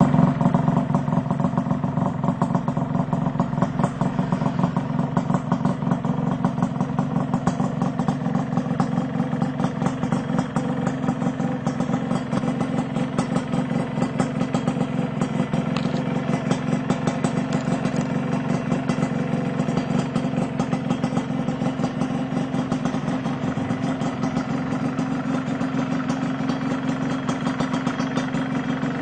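Yamaha RX-King's two-stroke single-cylinder engine idling steadily through an aftermarket CMS exhaust, a fast, even exhaust beat with no revving.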